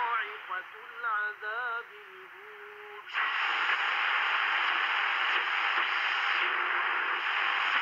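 Sony ICF-SW10 analog shortwave receiver, tuned by hand: for the first three seconds a weak station comes through as a wavering, warbling voice. Then the sound switches suddenly to loud, steady static hiss, with no station coming through.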